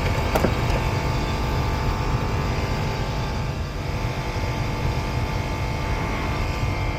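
Actron air conditioner's outdoor unit running, with the compressor and condenser fan giving a steady low rumble and hum. A short click comes just under half a second in, and a higher steady tone joins about three and a half seconds in.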